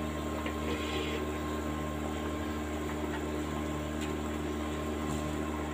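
Yakhni broth boiling in a wok over a steady low hum, with a few faint taps as rice is spooned in from a bowl.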